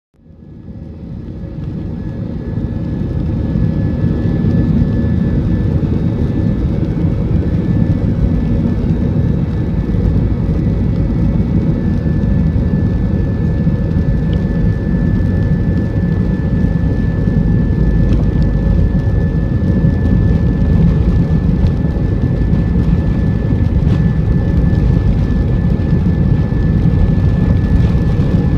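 Airbus A320's jet engines at takeoff power during the takeoff roll, heard from inside the cabin: a steady, loud low rumble with a thin steady whine above it, fading in over the first few seconds.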